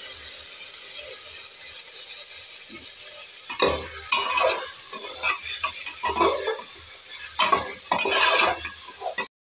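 Wet rice sizzling as it goes into hot oil tempering in a pressure cooker. From about three and a half seconds in, a metal spoon stirs and scrapes it round the cooker in repeated uneven strokes.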